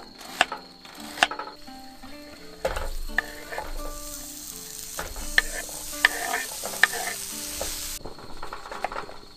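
Food sizzling in a hot pan while it is stirred, with sharp clicks of a utensil against the pan. The sizzle swells about three seconds in and cuts off near the end.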